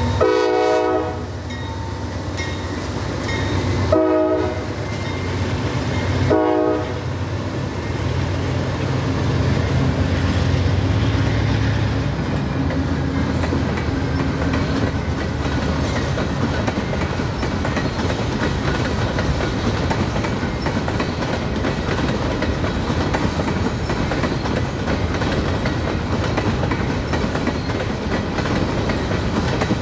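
A diesel freight locomotive's air horn blows three blasts in the first seven seconds, a long one, a short one and a medium one, over the low rumble of its engine. Then the train's cars roll past in a steady rumble with the clickety-clack of wheels on rail joints.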